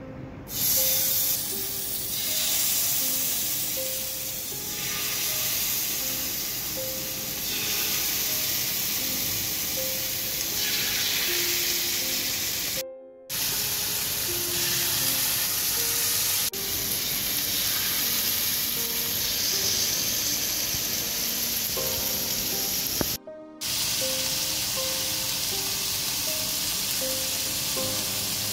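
Mutton liver skewers sizzling in hot oil on a flat tawa griddle, a steady hiss under a background music melody. The sizzle and music cut out briefly twice.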